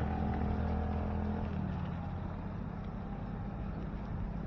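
A motor vehicle's engine runs close by with a steady hum that weakens after about a second and a half, over a haze of road and traffic noise.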